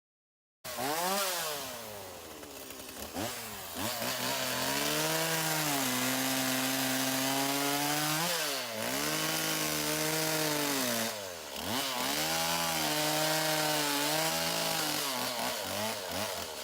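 Chainsaw cutting wood, starting abruptly about half a second in. The engine runs at high revs, drops in pitch and climbs back up three times, near the 3-, 9- and 12-second marks.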